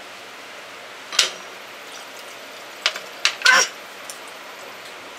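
A few short crunches and clicks of people eating pani puri, the loudest about three and a half seconds in, over a steady hiss.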